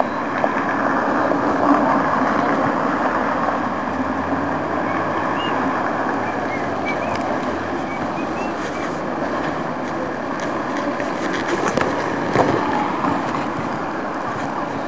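Steady running noise of a moving vehicle, with a few faint high chirps around the middle and a sharp knock or two near the end.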